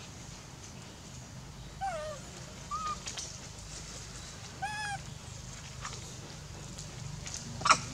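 Infant long-tailed macaque giving three short, pitched cries about two, three and five seconds in, the first falling in pitch and the last arching up and down. A sharp click near the end is the loudest sound, over a steady low hum.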